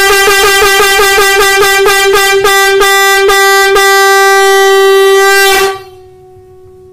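Shankh (conch shell) blown in the tutari call: one steady horn-like note broken into quick pulses about four a second, then three longer-spaced breaks, then held as one long unbroken note that stops abruptly over a second before the end.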